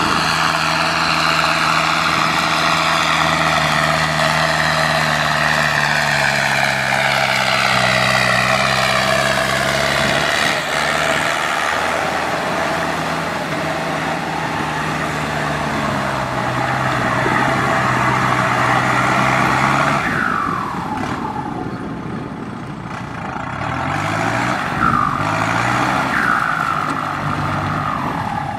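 Kubota M6040SU tractor's diesel engine running steadily under load, driving a rotary tiller through wet mud, with high whines that slowly fall in pitch. About two-thirds of the way through the sound drops in level, then the engine pitch wavers up and down.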